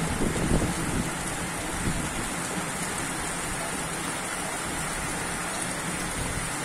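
Steady rain falling in a thunderstorm, with a few low rumbles during the first second.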